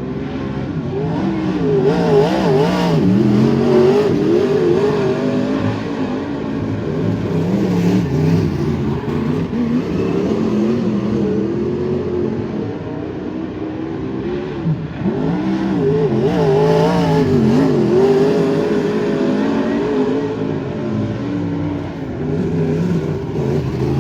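Several wingless sprint cars' V8 engines racing around a dirt oval, overlapping, their pitch rising and falling as they go on and off the throttle. They get louder twice as the cars come by.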